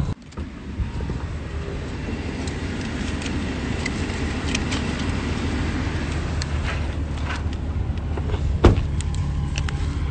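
A vehicle engine idling with a steady low hum, with scattered light clicks. One sharp thud about three-quarters of the way through, a car door being shut.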